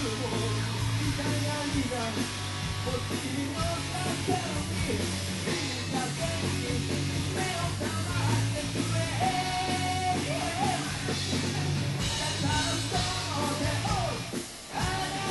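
A rock band playing live, with electric guitars, drums and keytar under a vocalist singing. The music drops out briefly near the end, then comes back in.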